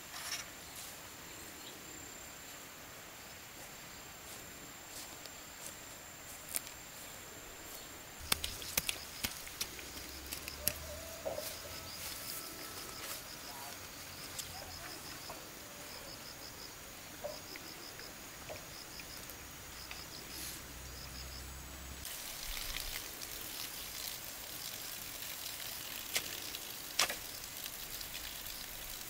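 Outdoor ambience with insects: a steady high insect drone, then, from about a third of the way in, rhythmic high chirping, with scattered clicks and knocks throughout.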